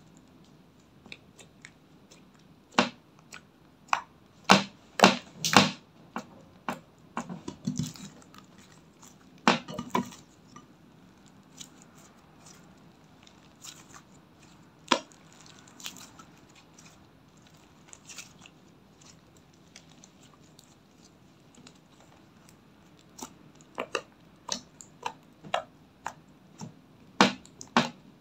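Clear slime being stretched, folded and poked by hand in a glass dish, giving irregular wet pops, clicks and squelches. The pops come in bunches, loudest near the start and again near the end, with a quieter stretch of kneading between.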